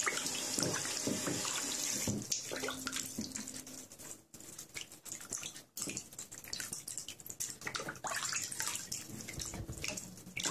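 Kitchen tap running into a stainless steel pot of water while hands rub and swish soaked sea cucumbers in it. The steady rush of the tap eases about two seconds in, leaving irregular splashing and sloshing.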